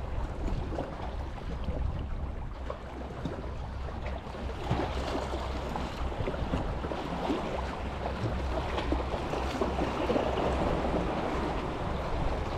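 Sea water lapping and splashing, with wind rumbling on the microphone and small scattered ticks, all a little louder from about four and a half seconds in.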